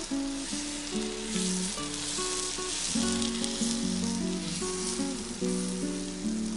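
Takoyaki batter sizzling as it is poured onto a hot takoyaki plate, with background music of plucked notes.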